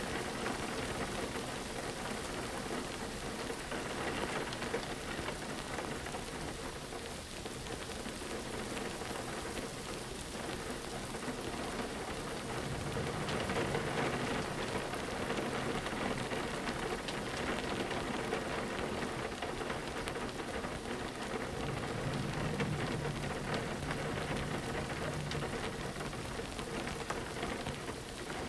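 Steady rain pattering on a window, with a low rumble rising twice, in the middle and again later on.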